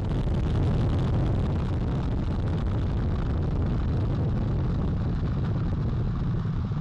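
Steady, deep rumble of the NASA Space Launch System rocket climbing just after liftoff, its four RS-25 core-stage engines and two solid rocket boosters at full thrust.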